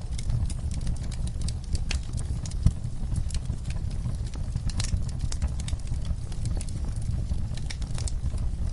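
Wood fire burning in a fireplace: irregular crackles and pops over a low steady rumble of the flames, with one louder pop a little under three seconds in.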